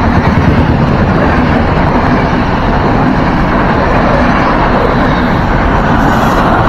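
Trenitalia Intercity passenger coaches passing close by: a loud, steady rumble and rush of steel wheels on the rails.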